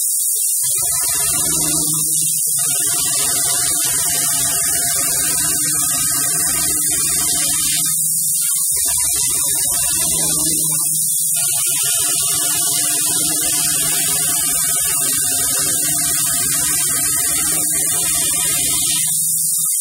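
5-axis CNC router's electric spindle running steadily with a high whine while its long bit carves a block of EPS foam. Beneath it runs a lower machine hum that cuts out briefly about five times.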